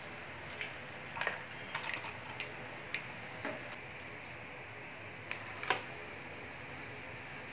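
Scattered light clicks and clinks of keys and small objects against the metal cup hooks and wooden pocket of a wall-mounted key holder, over a steady hiss. The loudest click comes about two-thirds of the way through, as an item is set into the pocket.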